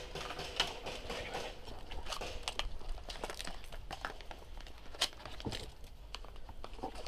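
Footsteps scuffing over concrete and grit, with the rustle of worn tactical gear. Scattered sharp clicks come through; the loudest are about half a second in and about five seconds in.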